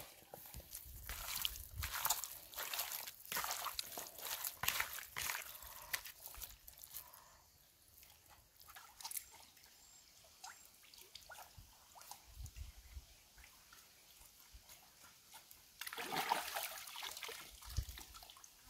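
Hands washing raw pig intestines in river water, with intermittent splashing and sloshing. It comes in busy bursts through the first few seconds and again near the end, with a quieter stretch between.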